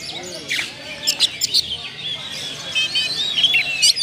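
Oriental magpie-robin singing a quick, varied string of whistles, chirps and sharp clicks, its song filled with learned notes copied from other birds.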